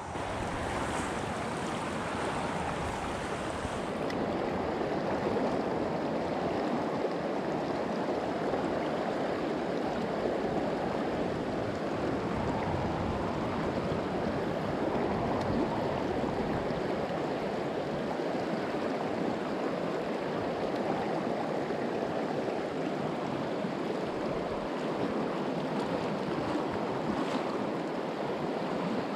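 Shallow mountain river rushing over rocks through a riffle: a steady, even rush of running water.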